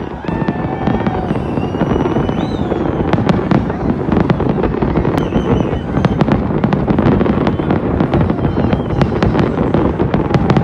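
Large fireworks display: a continuous rumble of many shells bursting, with sharp cracks scattered throughout.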